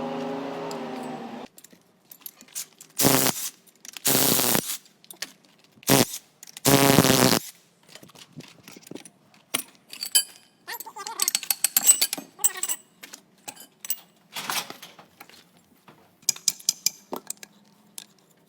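Four short, loud bursts of a power tool, then a run of light metallic clinks and rattles from tools and parts being handled during work on a loader's front axle and differential.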